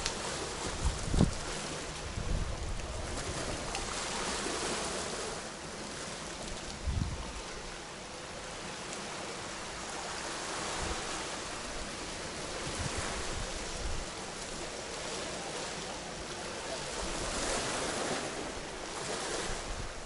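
Small sea waves breaking and washing up a pebble beach, the surf swelling and fading every few seconds. A few low buffets of wind hit the microphone.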